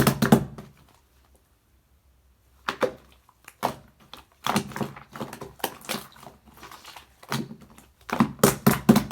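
Clear slime being squeezed and pressed by hand, giving clusters of quick sharp clicks and pops, with a pause of nearly two seconds about a second in.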